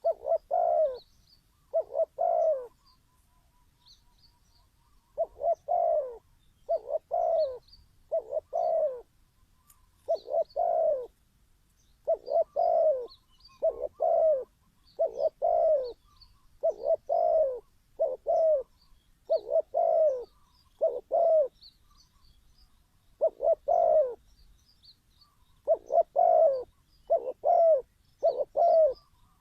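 Spotted dove cooing: mellow, low coos delivered in short repeated phrases with brief pauses between them. Faint high chirps of small birds sound in the background.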